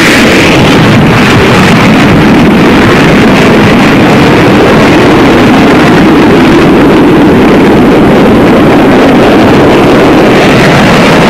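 Jet engines of a twin-engine carrier fighter at full thrust during its takeoff run off the deck's ski-jump: a loud, steady noise.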